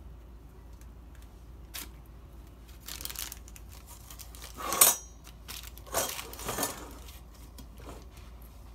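A knife scraping and clinking against a metal pan while grilled bread is cut and lifted, with a sharp metallic clatter near the middle, the loudest sound, as utensils are set down, then more scraping.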